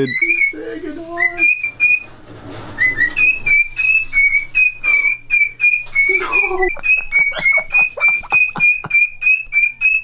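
Cockatiel whistling a long, even run of short notes, about three a second, the repetitive call of a courting male. Sharp clicks and rattles of cage wire come through it as the cage is handled.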